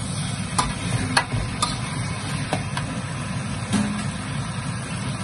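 Steel ladle stirring chopped tomato with onion and ginger in a steel wok, clinking sharply against the pan a few times in the first half, over a steady low rumble.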